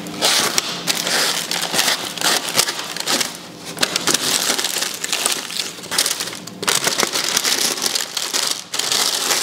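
Aluminium foil and baking paper crinkling as hands fold and crimp the foil up around the edges of a tray. The crinkling comes in irregular bursts, with short lulls about a third of the way in and again past the middle.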